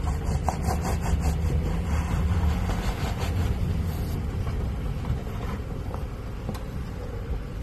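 2014 Lexus LX 570's V8 engine running at low revs as the SUV crawls up a dirt mound, with scattered crunches from the tyres on loose dirt in the first second or two. The rumble eases a little after about three seconds.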